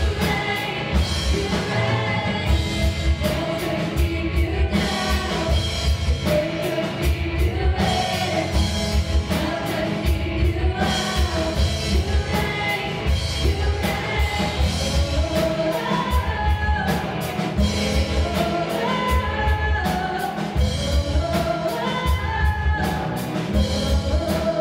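Loud music with singing over a steady, heavy bass beat and sharp, frequent percussion ticks.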